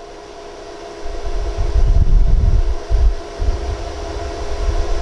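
Steady machine hum made of several tones, overlaid from about a second in by loud, irregular low rumbles, the loudest around two seconds in and again near the end.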